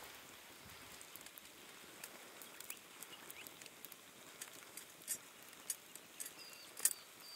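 Faint crackling of a wood campfire: a low hiss with scattered sharp pops and snaps, the loudest about five and seven seconds in. A faint short high chirp near the end.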